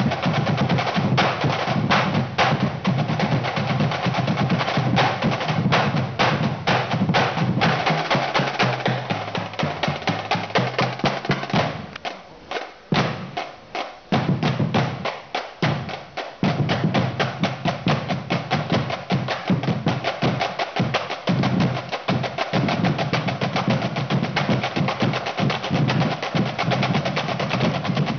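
A drum corps plays a fast unison routine of rolls and rapid strokes on snare drums. About twelve seconds in, the playing drops to a few separate strokes for several seconds, then the full rapid drumming resumes.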